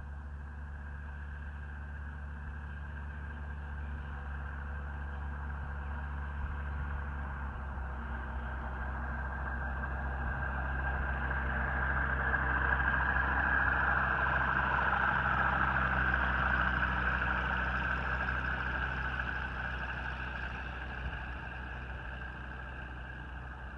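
Single-engine light airplane's engine and propeller droning as it comes in to land, growing louder to a peak about halfway through and then fading.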